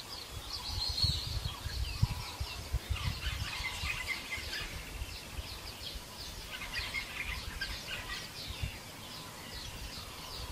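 Many small birds chirping and twittering in quick, overlapping calls, over a low, uneven rumble.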